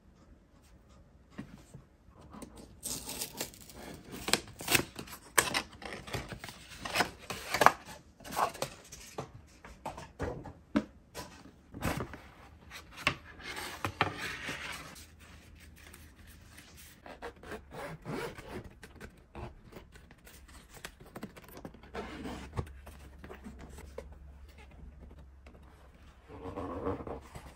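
Cardboard headphone box and packaging being handled and opened: rubbing and scraping with a run of sharp clicks and taps, busiest in the first half, then softer handling of the carrying case.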